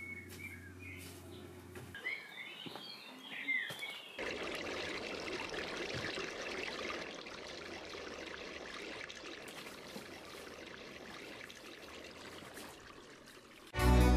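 Small birds chirping for the first few seconds, then steady rushing water in the aqueduct's free-flowing channel, heard down an inspection shaft from about four seconds in. Harpsichord music starts just before the end.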